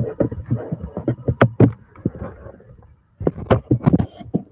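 Handling noise from the recording device being picked up or moved close to its microphone: an irregular string of knocks and rubs, pausing briefly a little before three seconds in, then a second flurry.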